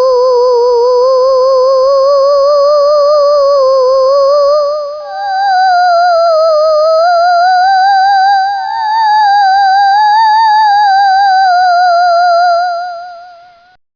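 Eerie, theremin-like electronic tone with a fast wobble, held long and gliding slowly, jumping higher about five seconds in. A thin steady high whine sits above it, and both fade out near the end.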